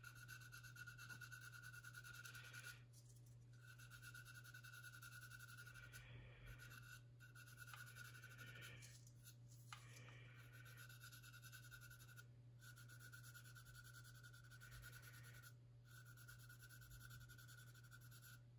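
Faint scratching of a coarse sanding stick rubbed over a plastic model aircraft fuselage, smoothing down cured filler on a seam, in runs of a couple of seconds with short pauses between them. A low steady hum sits underneath.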